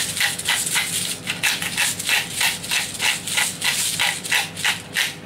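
Hand-twisted pepper grinder grinding black peppercorns in a quick, even run of rasping strokes, about three or four a second, stopping just before the end.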